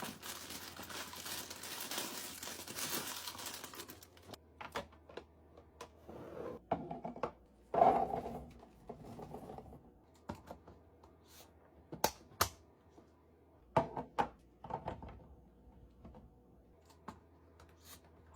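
Plastic packaging crinkling and tearing for about the first four seconds, then a run of sharp clicks and knocks as containers and items are set down and handled. The loudest knock comes about eight seconds in.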